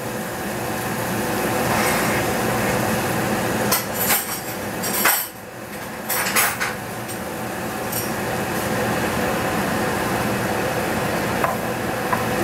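Glass and metal kitchenware clinking and rattling a few times, with the sharpest knocks near the middle, over a steady rushing hiss that swells during the first two seconds and then holds.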